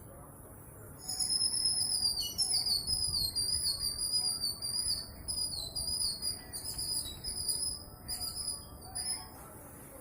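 A high-pitched warbling whistle, wavering up and down in pitch, starting about a second in and stopping shortly before the end.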